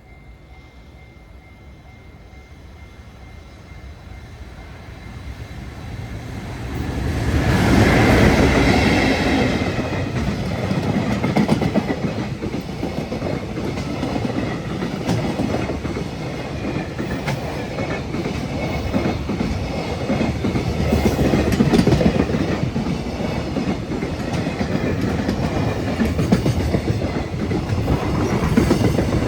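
Freight train approaching and passing at speed behind an EF210 electric locomotive, with an unpowered EF65 in tow. The rumble builds for about seven seconds, and the locomotives go by loudest. A long string of freight wagons then clatters past over the rail joints until the end.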